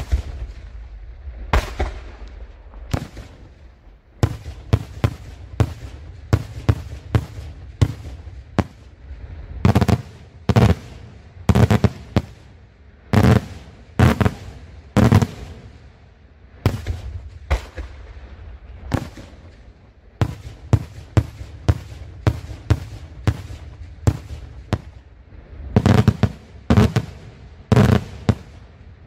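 Daytime aerial fireworks bursting overhead in a rapid, irregular string of sharp bangs, often more than one a second, with a low rumble of echoes between them.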